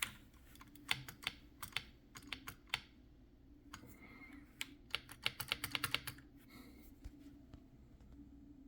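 Keys being pressed on an Akko 5075B Plus V2 mechanical keyboard: scattered single keystrokes for the first three seconds, then a quick run of about a dozen presses between about four and a half and six seconds, with little after.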